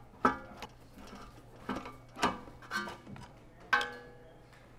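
About half a dozen sharp metallic clinks and knocks, each ringing briefly: hex driver and metal parts knocking inside an espresso machine as the coffee boiler's mounting screws are undone and the boiler is worked loose.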